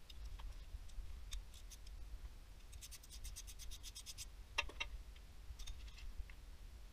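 Hand ratchet clicking as 10 mm bolts are backed out of an engine's front oil pump housing: a few single clicks, then a quick, even run of clicks lasting about a second and a half, followed by two sharp metal clinks.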